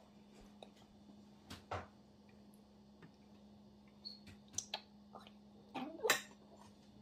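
A few light clinks and knocks of metal spoons against small enamel serving bowls as the bowls are handled on a table, the loudest cluster near the end, over a faint steady hum.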